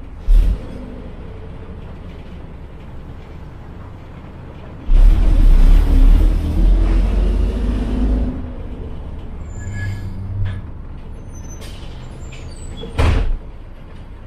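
Yangtze River Jingcheng front-engine city bus idling, with a burst of compressed-air hissing about five seconds in that lasts some three seconds. A short thump comes just after the start and another near the end.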